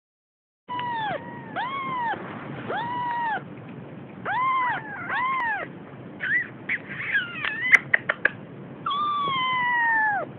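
An almost three-week-old Siamese kitten mewing: a run of short, high mews that each rise and fall in pitch. They are followed by quick chirps and a few sharp clicks, then one long mew that slides down in pitch near the end.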